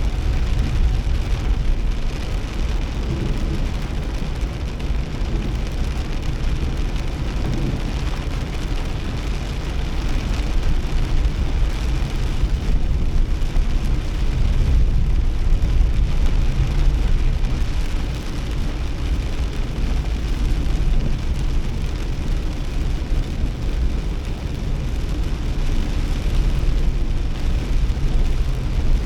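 Nissan Kix kei SUV driving through a heavy downpour: a steady low engine and road rumble with rain falling on the car. The level swells and eases slightly but shows no sudden events.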